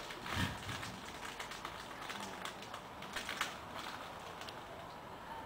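Irregular light clicks and taps, with one dull thump about half a second in.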